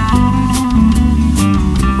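Song instrumental passage: guitar playing over bass and a steady drum beat.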